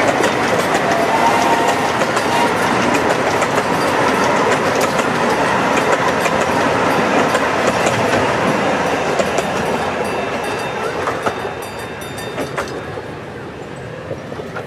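Grand scale 16-inch gauge passenger cars rolling past, their wheels clicking over the rail joints. The sound fades over the last few seconds as the caboose at the end of the train draws away.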